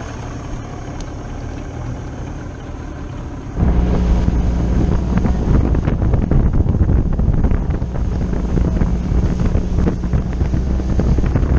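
Mercury 90 two-stroke outboard running as the boat moves across open water. About three and a half seconds in the sound suddenly gets much louder: wind buffeting the microphone and water rushing past the hull at speed, over the steady drone of the engine.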